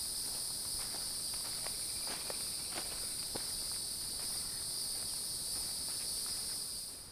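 Steady high-pitched insect chorus droning in the woods, with footsteps on dry leaf litter about twice a second. The insect sound stops abruptly near the end.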